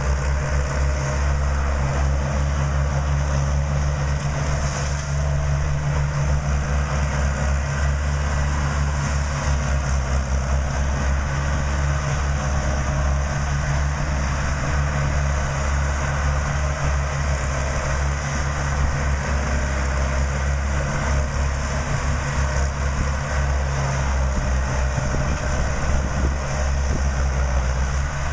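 A farm machine's engine running steadily at a constant speed, with a deep even hum and no changes in speed.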